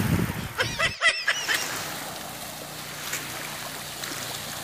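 Steady surf and wind noise at the shoreline. About a second in comes a brief flurry of high chirping sounds.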